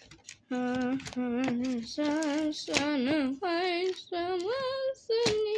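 A female voice singing a short wordless tune of about seven held notes with vibrato, separated by short breaks, the last notes higher.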